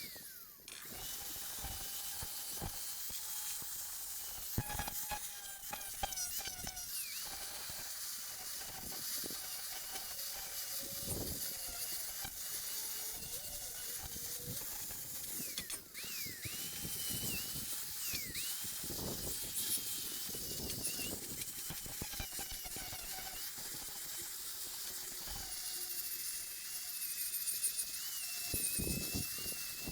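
Angle grinder fitted with a sanding pad, running and sanding welded steel edges and corners: a steady high whine over a gritty hiss, easing off briefly near the start and about 16 seconds in.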